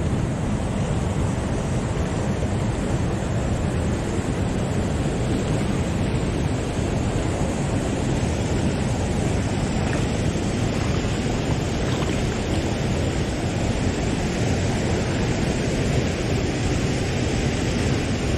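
Steady rush of fast water pouring through a lake spillway inlet, a continuous even roar with no breaks.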